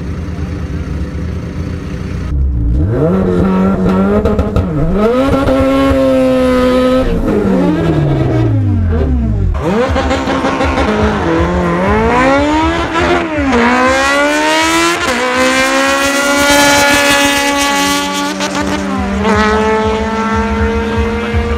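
Turbocharged Acura Integra GSR four-cylinder engine making a drag-strip pass: after a steady low note it is revved up and held, then pulls hard through the gears, the pitch climbing in each gear and dropping sharply at each upshift, about three shifts in the second half.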